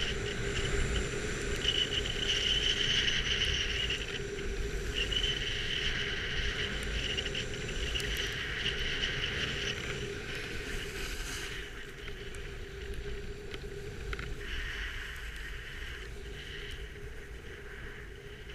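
Steady rushing noise of a waterfall, with a high steady buzz over it that breaks off and starts again several times.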